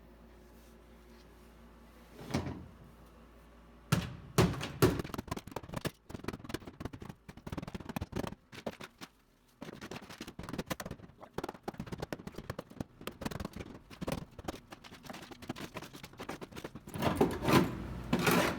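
A steel hammer rapidly striking frozen sound-deadening tar on a car's sheet-steel floor pan, the dry-ice-chilled tar cracking and breaking away. After a single thump, quick knocks start about four seconds in, several a second, and grow loudest near the end.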